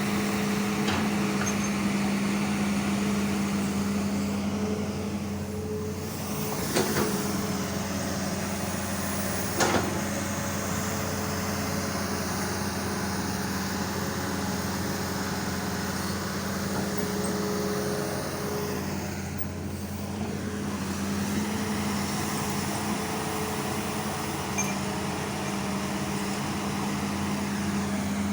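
Hitachi ZX200 hydraulic excavator's diesel engine running steadily with a low hum, with two sharp metallic knocks about seven and ten seconds in.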